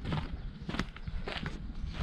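Footsteps on a rough stone lane, about three steady walking steps, over a steady low rumble.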